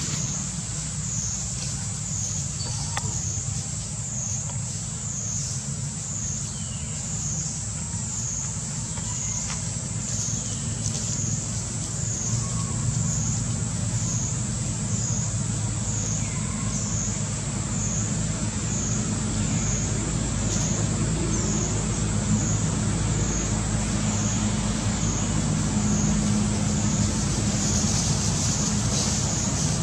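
Steady low rumble of a motor or distant traffic, under a high buzz that swells and fades about once a second.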